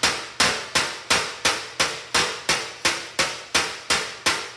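Body hammer striking a sheet-metal car fender in a steady rhythm of about three sharp, ringing taps a second, knocking a high spot down below the surface of the panel.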